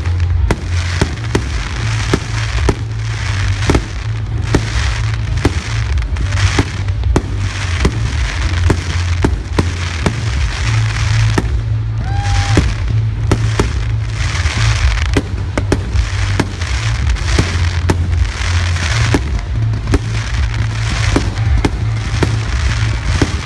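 Aerial fireworks display: a dense run of shell bursts, several sharp bangs a second over a continuous low booming rumble, with stretches of crackle between them. A short whistle sounds about halfway through.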